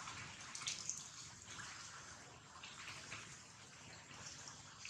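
Shallow muddy water splashing and sloshing as a macaque paws and moves about in it, with several soft splashes about a second apart.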